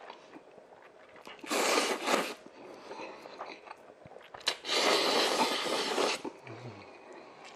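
A man slurping black-bean instant noodles (jjapaghetti) in two loud slurps, a short one about a second and a half in and a longer one near five seconds, with quiet chewing and mouth smacks between.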